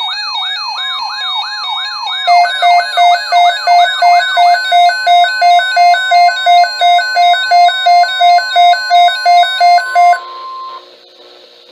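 Electronic alert siren yelping rapidly up and down, joined about two seconds in by a loud beeping alarm that alternates two tones about two and a half times a second, over a steady single tone. The alarm cuts off shortly before the end, leaving faint radio hiss.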